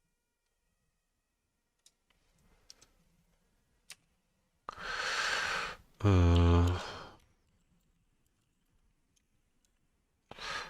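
A few scattered keyboard clicks, then a long breath in and a loud, voiced sigh that falls in pitch, from a man pondering a coding problem. Another short breath comes near the end.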